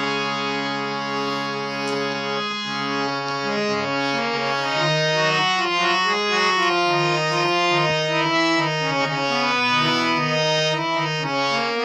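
Harmonium playing a slow melodic introduction over sustained low drone notes, the lead-in to a Bundeli kajri folk song.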